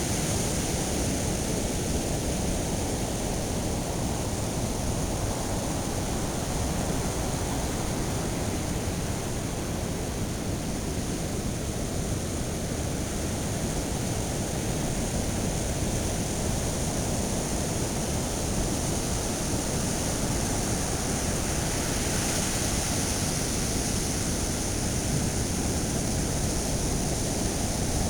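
Steady, even rushing of ocean surf.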